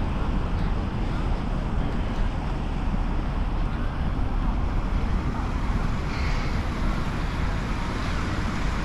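Wind buffeting the microphone in a steady low rumble, mixed with road traffic noise.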